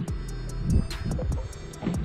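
Background music with steady held tones and a light percussive beat.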